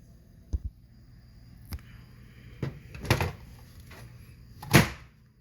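Clicks and knocks from a Macintosh Portable's battery case being worked open by hand: about five separate knocks, the loudest near the end.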